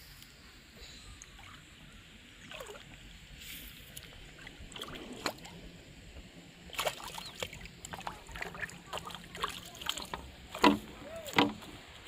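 A hooked fish thrashing and splashing in shallow pond water: a quiet start, then a run of irregular splashes in the second half, the loudest two near the end.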